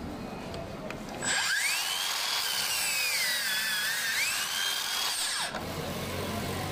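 Makita DLS600 18V brushless cordless mitre saw starting up with a steeply rising whine. Its pitch sags as the blade bites through a wooden board and climbs back once the cut is through. The whine then drops and stops abruptly.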